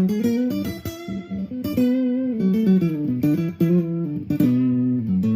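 Acoustic guitar played through a Behringer UO300 octave pedal: a quick run of single plucked notes with a deep, bass-like lower octave under them. The player calls the octave tracking a little glitchy.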